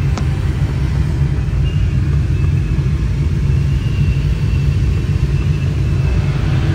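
Steady low rumble of airflow around a glider's closed cockpit canopy in flight, with a single short click just after the start.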